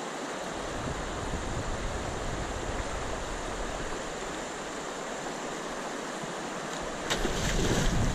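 Steady rush of river current over a shallow run. About seven seconds in it gets suddenly louder, with splashing and a low rumble as a hooked salmon thrashes at the surface.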